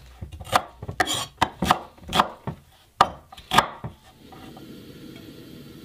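Kitchen knife dicing an onion on an end-grain wooden cutting board: about ten uneven knocks of the blade through the onion onto the wood, stopping about four seconds in.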